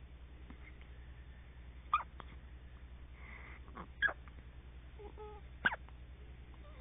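Hiccups: three short, sharp hiccups about two seconds apart, the first about two seconds in, over a steady low hum.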